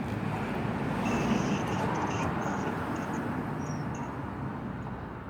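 A vehicle passing by: a rushing noise that swells about a second in and then slowly fades, with a few faint high squeaks over it.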